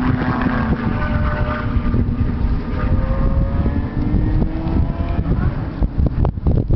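Wind buffeting the microphone over distant race car engines droning from the track, their pitch slowly rising and falling.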